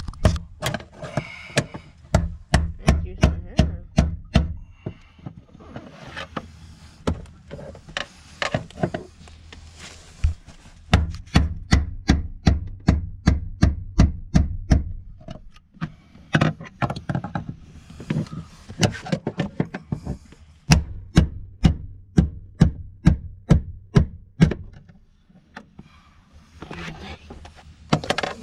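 Repeated sharp metal strikes, in runs of quick blows about three a second with short pauses between, as the fuel pump assembly is knocked into place in a 2006 Chrysler 300's fuel tank opening until it is seated all the way.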